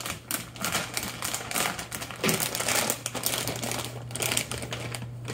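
Quick, irregular clicking and tapping of a Belgian Malinois's claws on a hard wooden floor as it hurries to its crate, mixed with footsteps, over a steady low hum.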